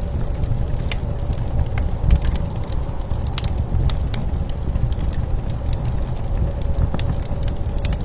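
Wood fire crackling with frequent sharp irregular pops, over a steady low rumble of blizzard wind with a faint steady whistle.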